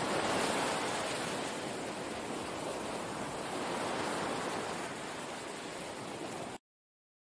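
Steady rushing water ambience with no pitched parts, cutting off abruptly about six and a half seconds in.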